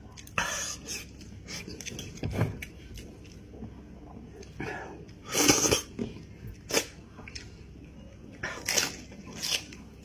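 A person eating goat head close to the microphone: irregular wet chewing and lip-smacking noises, with one louder half-second burst of noise about five and a half seconds in.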